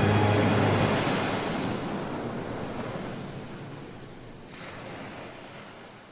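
Ocean surf washing on the shore, a steady rush of noise fading out gradually, with one brief swell about four and a half seconds in.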